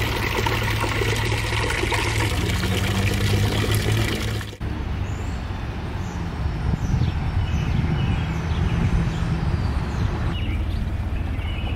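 Steady rushing outdoor noise with a heavy low rumble, changing character about four and a half seconds in, with a few faint bird chirps over it in the second half.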